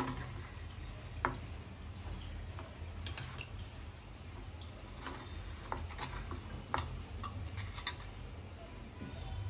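Steel spoon clicking and scraping against an aluminium idli plate as steamed idlis are prised out of the moulds, in scattered sharp clinks over a steady low hum.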